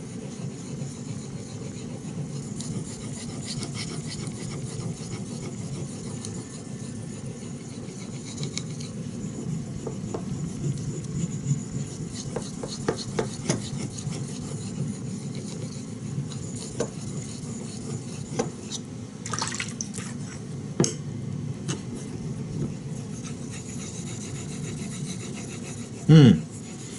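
A 3V steel knife blade stroked back and forth over a wet natural finishing water stone worked up with Botan Nagura slurry: steady gritty rubbing with scattered light clicks.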